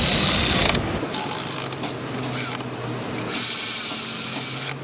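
Power drill-driver running in short on-and-off bursts, driving screws into a cover.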